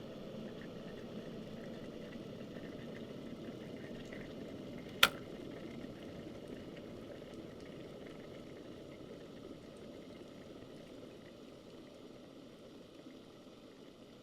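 Electric kettle at a full boil, a steady rumbling of water. About five seconds in there is one sharp click, typical of the kettle's automatic switch turning off at the boil, after which the rumbling slowly dies away.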